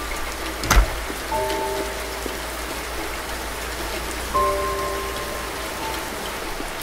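Steady rain falling, with one sharp crack about a second in. Soft held musical notes come in twice over the rain.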